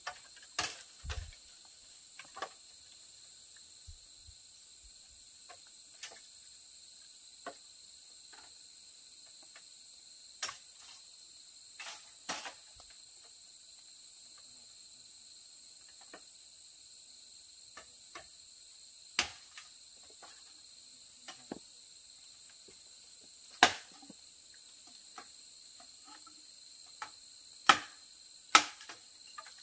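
A steady, high insect chorus, with sharp knocks and creaks of bamboo culms coming every few seconds as they are climbed; the loudest knocks come in the second half.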